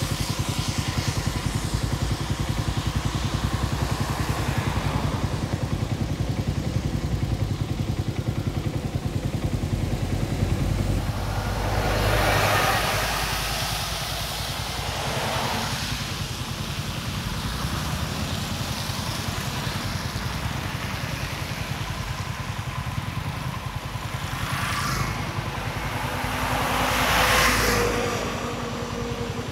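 Road traffic on a rain-wet road: cars and a bus passing, their tyres hissing on the wet asphalt, over a steady low rumble. The loudest passes come about twelve seconds in and again near the end.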